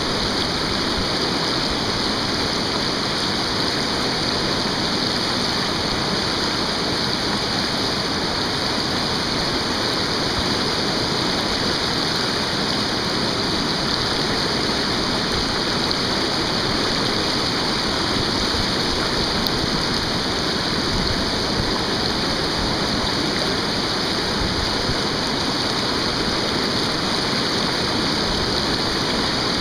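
Whitewater river rapids rushing: a loud, steady wash of turbulent water that does not change.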